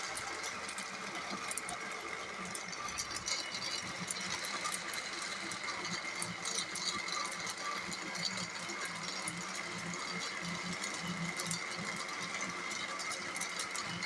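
Electric blender running steadily, blending watermelon pieces down into juice.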